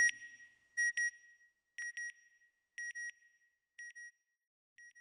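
Electronic double beep, a high-pitched pair of short tones repeating about once a second, each repeat quieter than the last until it fades out.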